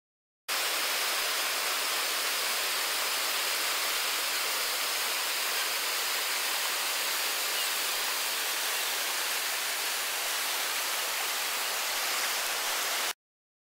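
River rapid's whitewater rushing, a steady hiss-like roar that cuts in about half a second in and cuts off abruptly just before the end.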